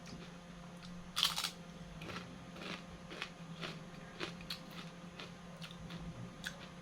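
Crispy kangkong (water spinach) chips being bitten and chewed close to the microphone, with one louder crunch about a second in and lighter crackles after it.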